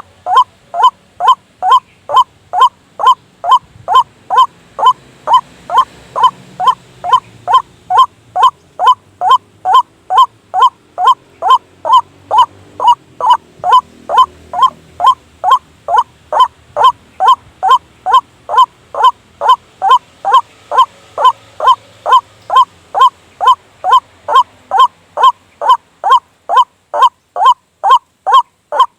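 White-breasted waterhen (ruak-ruak) calls played as a trapping lure: one short pitched note repeated at a steady pace, about two a second.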